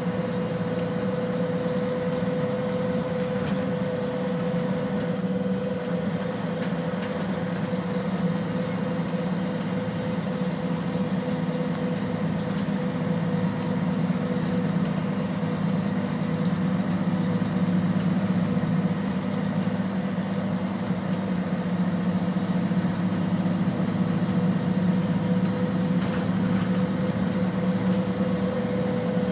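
Mercedes-Benz O500LE city bus heard from inside the passenger saloon while driving at a steady speed: a low engine drone with a steady, even-pitched whine from its ZF gearbox. It grows a little louder about halfway through, with a few light rattles.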